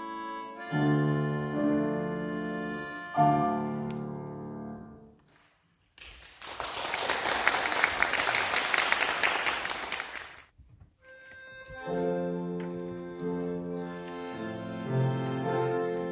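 English concertina playing sustained chords, which fade out about five seconds in. Then audience applause for about four seconds, cut off abruptly, and the concertina starts chords again.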